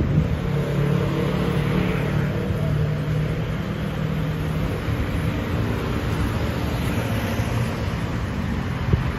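Steady road traffic on a busy multi-lane street, with a motorcycle engine running close by through roughly the first half.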